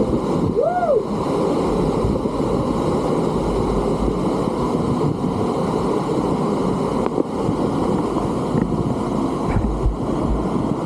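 Roar of a large waterfall crashing down close by: a loud, steady rush of falling water and spray.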